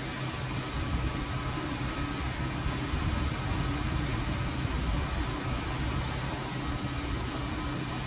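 A steady low mechanical hum and rumble that stays even throughout.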